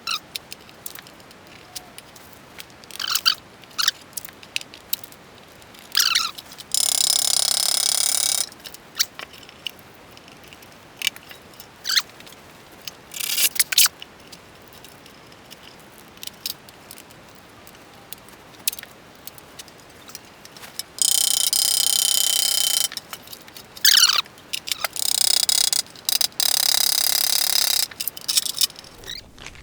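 Irregular sharp taps and knocks of a ball peen hammer setting aluminum rivets in toolbox latches. A few longer noisy stretches of one to three seconds come about seven seconds in and several more near the end.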